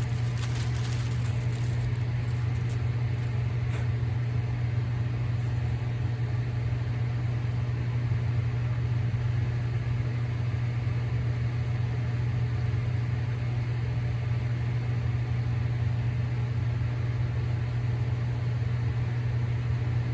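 A steady low mechanical hum that holds an even pitch and level throughout.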